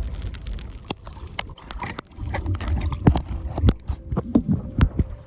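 Irregular knocks and taps on a boat as a freshly landed small striped bass is handled, over a steady low rumble.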